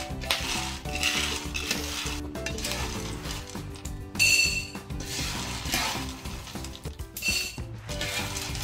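Toasted dried black corn kernels rattling and scraping as they are stirred around a hot nonstick pan, with light crackling from kernels that have begun to crack at the end of toasting. About halfway through, a metal utensil strikes the pan with a brief ringing clink. Background music plays underneath.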